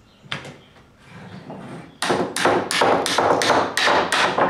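Small hammer tapping a threaded steel rod (all-thread) through drilled holes in wooden crutch bow pieces: after a light knock near the start, a quick, even run of sharp strikes, about four a second, begins about two seconds in.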